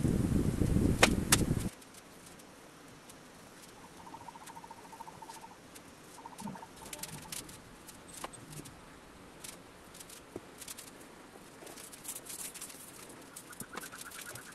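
A loud low rumbling noise that cuts off suddenly under two seconds in, then faint scattered clicks and light knocks of masking-taped wooden staves being handled and curled into a bucket shape.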